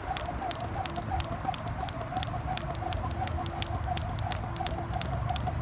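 Two jump ropes slapping a concrete slab in a rapid, uneven run of sharp clicks, about five a second.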